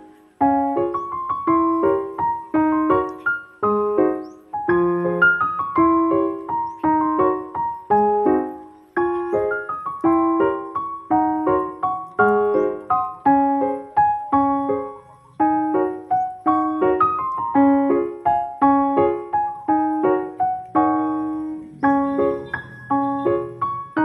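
Background music: piano playing a flowing melody, a steady run of struck notes that each die away, with a low sustained bass note entering near the end.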